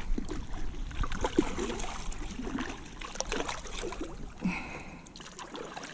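Water trickling and sloshing around a kayak, with scattered knocks and rustles of gear and line being handled.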